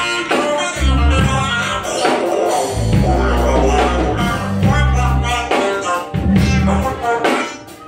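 Live band playing a song: a woman singing over drums, bass and guitar, with heavy bass notes that come and go.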